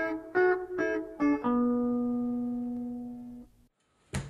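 Intro music: guitar chords struck in a quick rhythm, ending on one chord left ringing for about two seconds before it cuts off. A single sharp click comes near the end.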